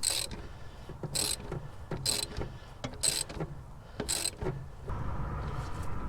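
Ratchet wrench worked in five short strokes about a second apart, tightening the power steering pump's belt adjustment. A steady low hum comes in near the end.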